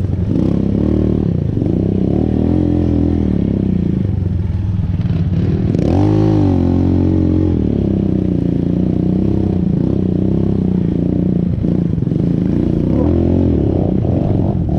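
Motorcycle engine running while riding, its revs rising and falling, with a strong surge and drop about six seconds in.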